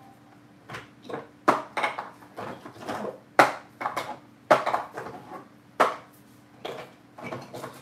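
Small plastic jars and lids clattering: about a dozen sharp, irregular clicks and knocks as containers are picked up, opened and set down on a table.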